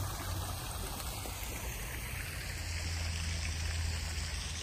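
Water running and trickling steadily, with a low steady hum underneath.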